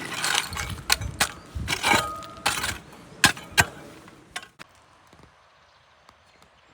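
A run of scraping and sharp, hard knocks, the loudest two close together near the middle, typical of hand work on masonry at a fireplace. The knocks stop a little over halfway through, leaving only faint background noise.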